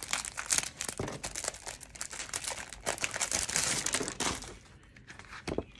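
Clear plastic packaging wrap crinkling and rustling as it is handled, a dense run of crackles that dies down about four and a half seconds in. A single short knock comes near the end.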